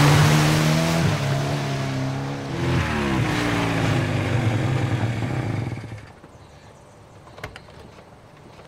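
Car engine revving hard as it speeds by, with a hiss of water spray over it; the engine note dips and climbs again near three seconds in. The engine fades away about six seconds in, leaving only a few faint clicks.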